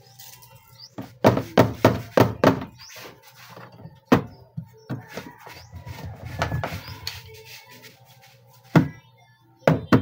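Thunks and rattles of a washing machine's sheet-metal back cover panel being pulled loose and pushed back onto the cabinet: a quick run of about five knocks about a second in, then scattered single knocks.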